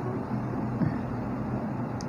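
Steady low hum of room background noise, with no distinct event.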